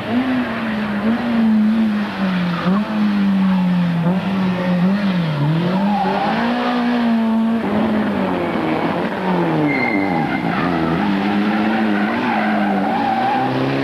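Rally car engine revving hard, its pitch rising and falling again and again with throttle lifts and gear changes through tight turns. Tyres squeal as the car slides through the corners.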